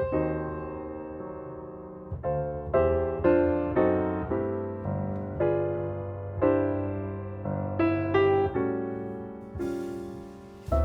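Background piano music: slow chords and single notes struck and left to ring and die away, over a held bass.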